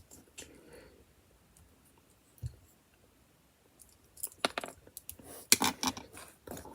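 Plastic LEGO pieces being handled and fitted together: a soft thud about two and a half seconds in, then a run of sharp little clicks and rattles in the second half.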